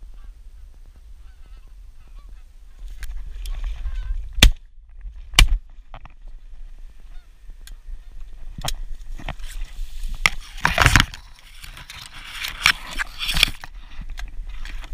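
Wild geese honking as a flock flies over, with a steady low wind rumble on the microphone. Two sharp bangs about a second apart, the loudest sounds, come about a third of the way in, and a burst of rustling and clicks follows later.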